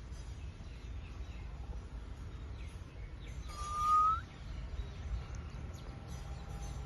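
A parrot gives one whistled call, held on one pitch and rising at its end, over a steady low background rumble.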